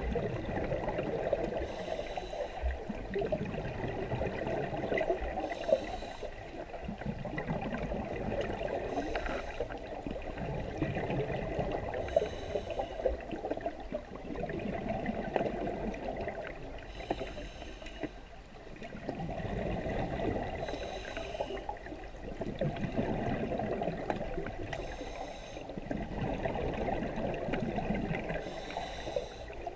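Scuba regulator breathing heard underwater: a short hiss of the demand valve on each inhalation, about every four seconds, and between them the rumbling gurgle of exhaled air bubbling out of the exhaust valve.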